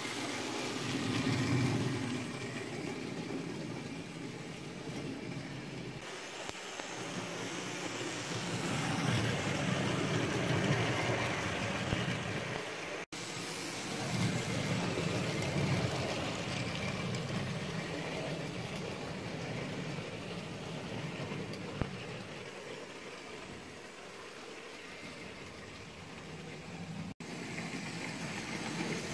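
OO gauge model locomotives running on the track: a steady whir and rumble from their small electric motors and wheels on the rails, swelling and fading as trains pass. It breaks off sharply twice, about halfway through and near the end.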